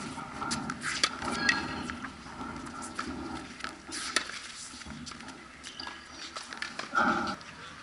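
Tennis rally on a hard court: sharp racket strikes and ball bounces every second or so, with players' footsteps on the court, and a short shout near the end as the loudest sound.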